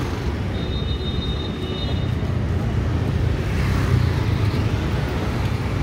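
Busy street ambience: a steady low rumble of traffic, with a brief high-pitched tone starting about half a second in and lasting around a second and a half.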